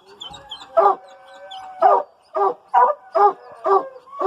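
Several hunting hounds barking in a quick uneven series, about seven loud barks, with a drawn-out howl early on and fainter high yips among them.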